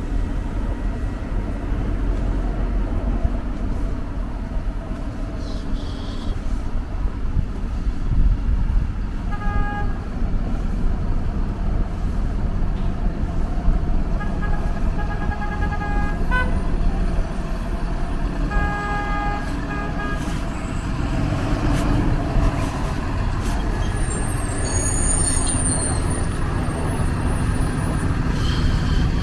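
Street traffic rumbling steadily, with several short vehicle-horn honks around the middle. A brief high squeak comes near the end.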